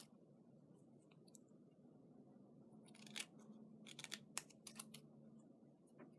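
Scissors snipping through paper: a quiet start, then a quick run of sharp snips about halfway through and one more near the end.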